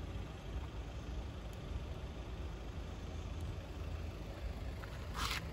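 Steady low background rumble, with a brief hiss about five seconds in.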